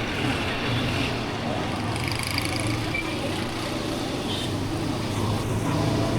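Street traffic noise with vehicle engines running steadily underneath, without any single loud event.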